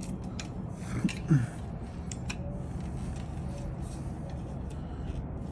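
Pizza cutter wheel rolling along a screen-door frame, pressing the rubber screen spline into its groove, with a few light clicks over a steady background hum. A brief voice sound about a second in is the loudest moment.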